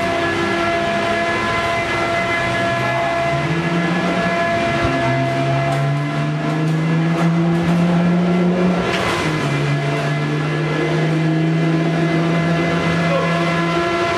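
Race car engine running hard: its pitch climbs over several seconds, drops sharply about nine seconds in, then holds steady.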